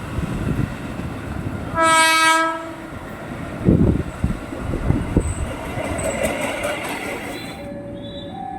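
KRL Commuterline electric train sounding one horn blast of about a second over the rumble of a train running on the track. Then comes a run of heavy clattering knocks, with faint steady tones near the end.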